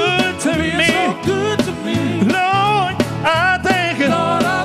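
A live gospel group singing with its band: wavering, melismatic vocal lines over bass guitar and a steady drum beat.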